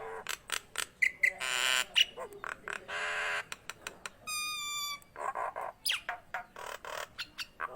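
Nias hill myna calling vigorously: a rapid mix of sharp clicks, harsh squawks and one clear whistled note a little past the middle.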